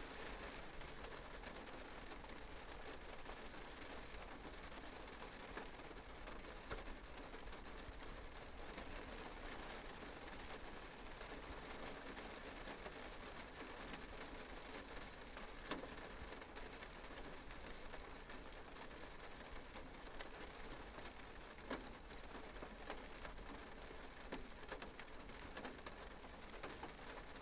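Light rain pattering steadily on a metal surface, a dense hiss of small drops with scattered sharper individual drop ticks.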